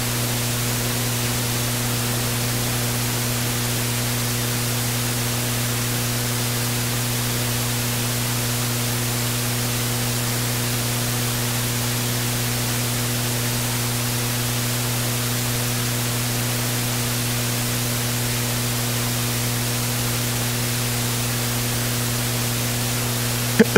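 Steady electrical hiss with a low mains hum, the noise floor of the sound system, with one short loud knock near the end.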